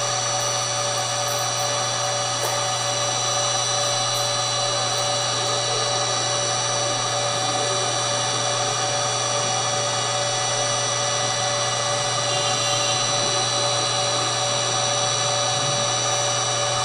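Metal lathe running at a constant speed while turning a steel shaft: an even low hum with a steady high whine over it.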